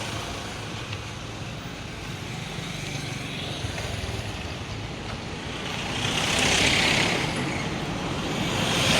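Street traffic noise: a steady rumble with vehicles going by, one passing loudest about six to seven seconds in and another near the end.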